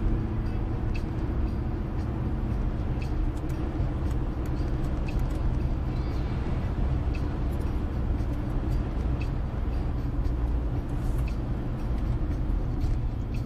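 Steady low rumble of a car's engine and tyres at road speed, heard from inside the cabin.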